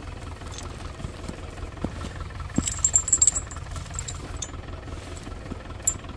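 Tractor engine idling steadily, with a run of sharp clinks and rattles about three seconds in.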